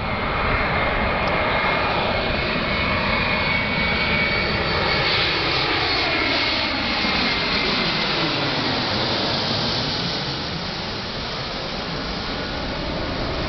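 Embraer regional jet's twin turbofan engines passing low overhead on landing approach: a steady high whine in the first few seconds over the jet noise, then a sweep falling in pitch as the plane goes over, easing slightly near the end.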